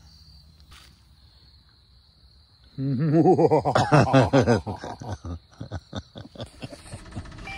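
A man lets out a sudden loud, wavering, animal-like yell about three seconds in, which breaks up into choppy laughter.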